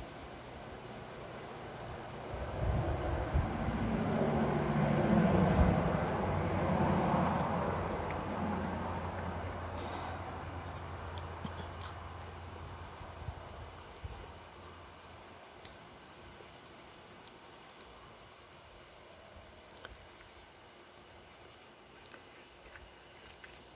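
Crickets trilling steadily in a high band. A low rumble swells up a couple of seconds in and dies away by about halfway through.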